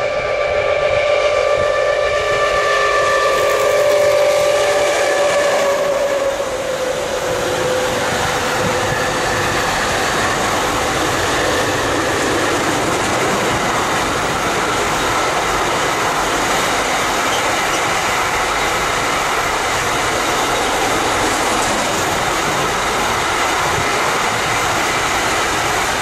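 A freight locomotive's horn sounds for the first few seconds and drops slightly in pitch as the locomotive passes. Then a long train of loaded container wagons rolls steadily past close by, with wheels clattering on the rail joints.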